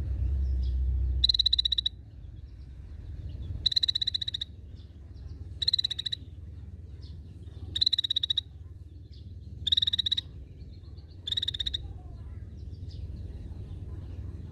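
Scaly-breasted bulbul (cucak bersisik) giving six short, rattling calls about two seconds apart, each a quick string of clicks.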